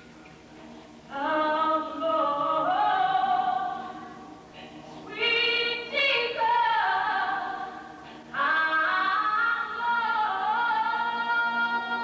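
Dance music with singing voices, choir-like, in long held notes: a quiet start, then three phrases coming in about a second in, around five seconds and just after eight seconds.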